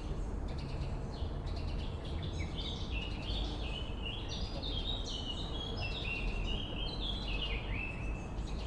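Swallows twittering in a quick run of stepped chirps, from about two seconds in until near the end, over a steady low rumble.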